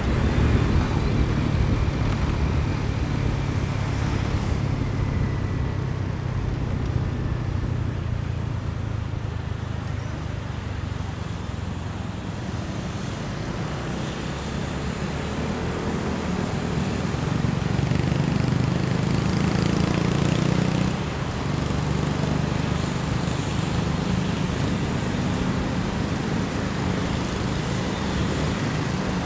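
Motorcycle engine running under way, with traffic noise around it. The engine gets louder about two-thirds of the way through, then drops back suddenly.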